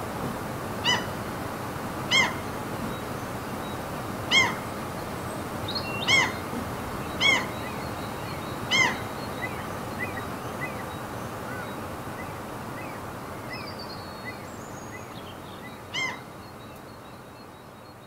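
Seagulls calling: short calls, six in the first nine seconds and one more near the end, over a steady background rush that fades out gradually.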